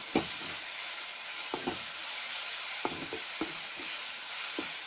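Green chillies, tomato and leafy greens frying in oil in an aluminium kadai: a steady sizzle, with the spatula scraping and tapping against the pan about once a second as it stirs, most sharply just after the start.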